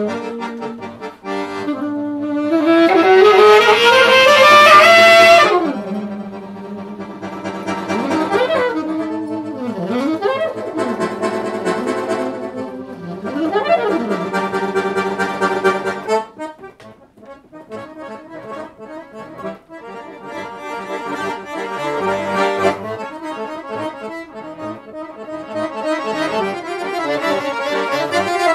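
A chromatic button accordion and an alto saxophone playing improvised jazz together. A long rising pitch slide comes in a few seconds in, then bending lines, and about halfway through the music drops quieter, to choppier chords.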